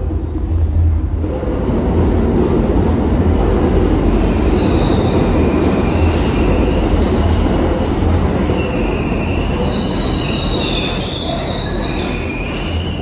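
New York City subway train running through the station with a loud, steady rumble that builds about a second in. Its wheels squeal in wavering high tones from about four seconds in, loudest near the end.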